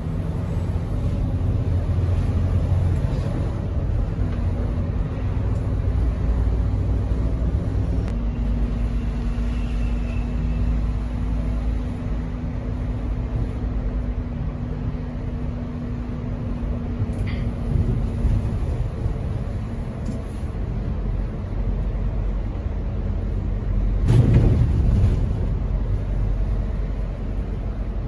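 Mercedes-Benz O500RS 1836 bus on the move, its rear-mounted straight-six diesel and the road giving a steady low rumble. A steady hum runs through the middle, and a brief louder rush of noise comes about 24 seconds in.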